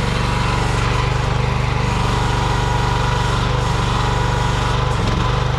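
Small engine of an AGT Industrial Q12 mini excavator running steadily, with a brief dip in pitch near the end.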